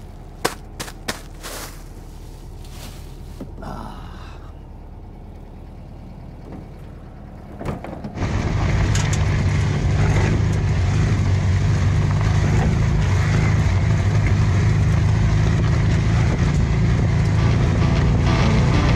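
A few sharp knocks, then from about eight seconds in a VW bus engine running steadily and loud as the bus drives.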